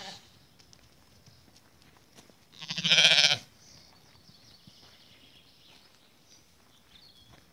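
A sheep bleats once, loud and wavering, about three seconds in, lasting under a second.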